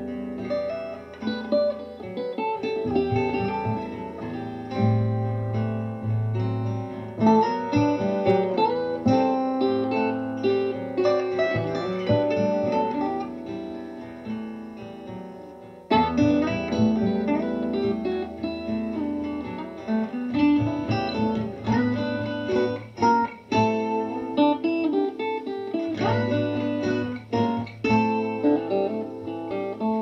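Plucked guitar music, notes picked and strummed. Just before halfway it dies down and then comes back abruptly at full level.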